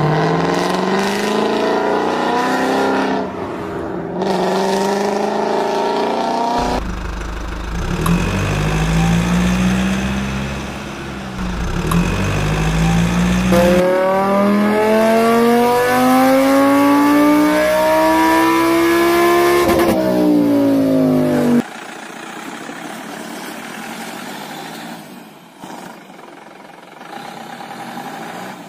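Car engine revving up again and again, its pitch climbing in long sweeps, then cutting off abruptly about three-quarters of the way through; fainter sound follows.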